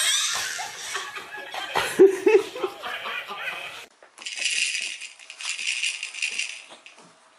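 Laughter for the first few seconds, then a baby's handheld rattle toy shaken in two quick spells of about a second each.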